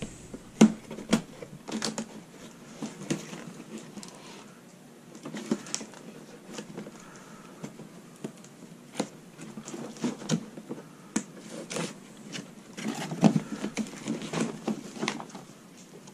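Cardboard packaging being handled and cut open with a knife: irregular taps, clicks, scrapes and rustles, busiest near the start and again near the end.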